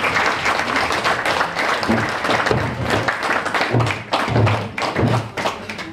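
Audience clapping, a dense, steady patter of many hands.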